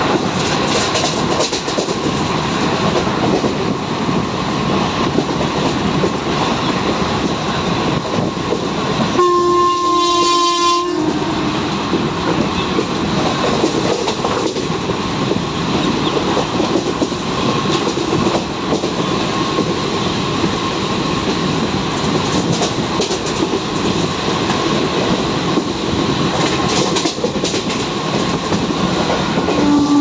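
Passenger train running at full speed, heard from the coach doorway: a steady rumble with wheel clatter over the rail joints. The WAP-4 electric locomotive's horn sounds once for about a second and a half about nine seconds in, and starts again at the very end.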